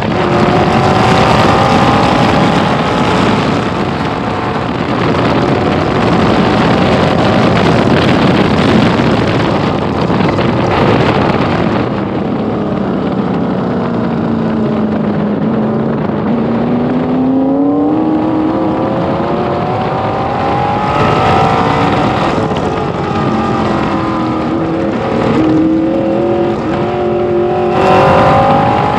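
1966 Corvette race car's V8 engine at racing speed, heard from the driver's seat of the open car. The revs climb at first, fall slowly to a low point about halfway through, then climb sharply again and rise and fall through several gear changes near the end.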